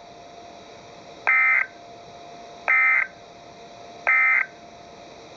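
Emergency Alert System end-of-message signal on NOAA Weather Radio: three short identical bursts of shrill, warbling digital data tones, about a second and a half apart, marking the end of the alert. A faint hiss and a thin steady tone sit underneath.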